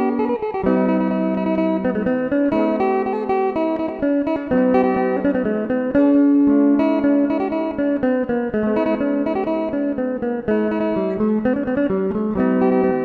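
Phin, the Thai plucked lute, being played: a busy line of plucked melody notes over lower notes that ring on underneath, a new instrument being tried out for its sound.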